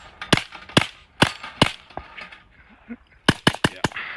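Suppressed shots from a Glock 44 .22 LR pistol with a SilencerCo Sparrow suppressor: four shots about half a second apart, then after a pause of a second and a half, a quick burst of about five.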